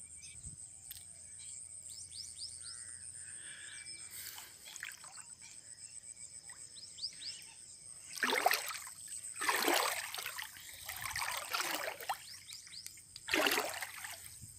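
Water splashing and sloshing in several loud bursts from about eight seconds in, with one more near the end, as a person wades through shallow lake water. Before that, faint bird chirps.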